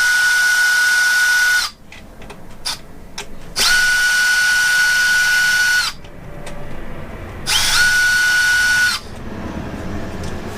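Small electric driver with a 2.0 mm hex bit spinning out 2 mm hex bolts from an RC car chassis, in three runs. The first stops about a second and a half in. Then come two more runs of about two seconds each, each rising quickly to a steady high whine. Light clicks fall between the runs.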